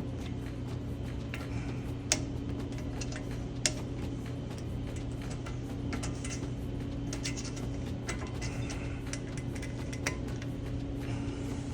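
Light metallic clicks and clinks of hand tools and brake parts being handled, two sharper ones about two and three and a half seconds in, over a steady low hum.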